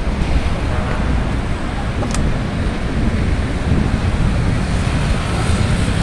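Wind buffeting the microphone in rumbling gusts, over the steady rush of road traffic.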